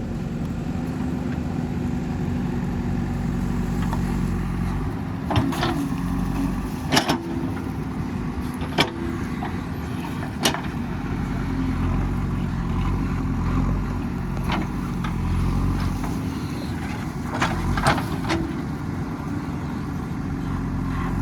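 Excavator's diesel engine running steadily under load, its pitch rising and falling as the hydraulics work, with a series of sharp knocks and clanks through the middle of the stretch.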